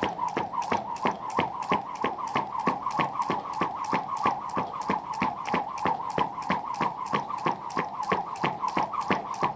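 Jump rope skipping at a fast, steady pace: a quick even rhythm of sharp clicks, about four a second, over a whir that rises and falls with each turn of the rope.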